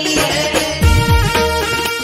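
Instrumental break in a Hindi devotional song: held steady synth tones over a beat of deep drum hits.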